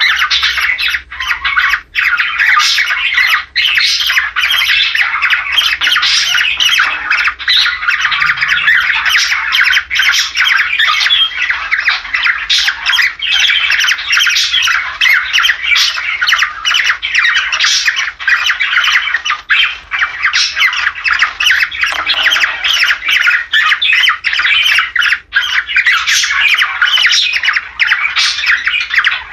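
Cockatiels squawking and chattering without a break, many calls overlapping. This is breeding-season calling of the kind played to pairs to bring them into condition to mate.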